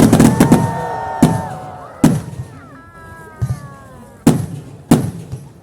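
Fireworks exploding in a string of sharp bangs, several close together at the start and then spaced out every second or so. Long pitched calls sound between the bangs.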